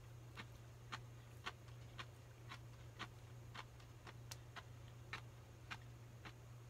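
Faint, regular ticking of a clock, just under two ticks a second, over a low steady hum.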